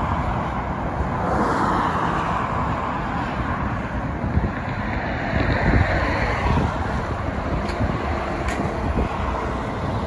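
Highway traffic passing below: a continuous tyre-and-engine hiss that swells as cars go by, with wind buffeting the microphone.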